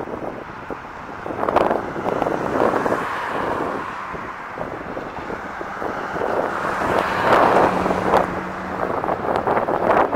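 Highway traffic passing close by, with louder swells as vehicles go past about a second and a half in and again around seven to eight seconds, and wind buffeting the microphone.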